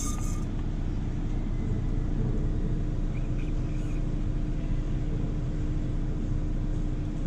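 Steady low hum of running machinery, with one constant tone held throughout.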